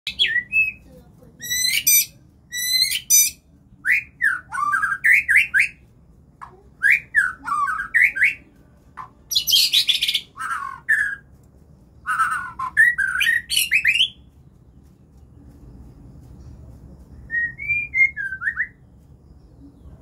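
White-rumped shama (murai batu) singing loudly in rapid, varied phrases: sweeping whistled notes mixed with harsh, rasping calls. It falls quiet about two-thirds of the way through, then gives one short whistled phrase near the end.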